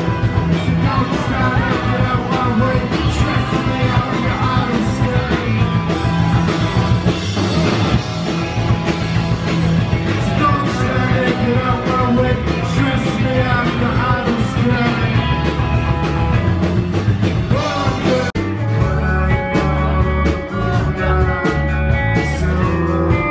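Live rock band playing loud, with electric guitars, drums and a singer. About three-quarters of the way through the sound changes abruptly, as if cut to another part of the song.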